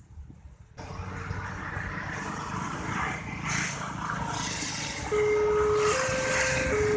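Railway level-crossing siren horn driven by a Multec TC siren module, starting about five seconds in with two electronic tones, lower and higher, alternating a little under once a second: the warning that a train is approaching. Before it, a steady rush of passing road traffic.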